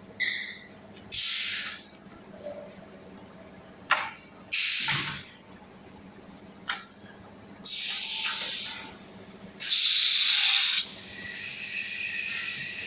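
Blow-moulding machine's compressed air and pneumatics: a series of hissing air blasts, each under about a second, with a few sharp clicks between them over a steady machine hum.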